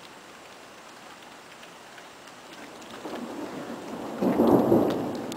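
Steady rain falling, with a roll of thunder that builds about three seconds in, is loudest near the end, and begins to fade.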